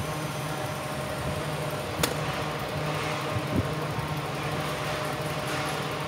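Steady low machine hum, with a sharp click about two seconds in and a duller knock a little later as parts of a cycloidal pinwheel reducer are handled and fitted onto an electric motor.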